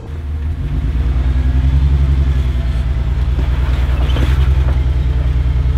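Off-road Jeep's engine running with a steady, pulsing exhaust rumble that grows louder about half a second in.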